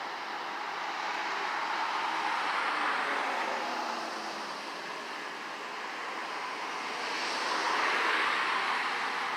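Strong derecho wind blowing in gusts, a continuous rushing that swells twice, about two to three seconds in and again near the end.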